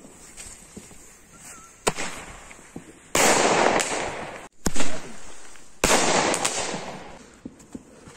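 Firework rocket set off while stuck in the ground. After a small crack, it bursts into loud hissing for just over a second. The hissing is followed by one very loud bang, the loudest moment, and then a second loud burst of hissing that fades away.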